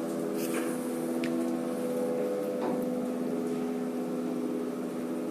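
A 1920s Marriott's electric lift in motion, with its machinery giving a steady hum and a few light clicks.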